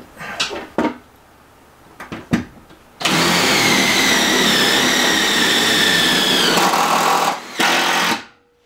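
A cordless drill runs hard in one long steady burst of about three and a half seconds, its whine sagging a little near the end, then runs again briefly. A few sharp knocks of handling come before it.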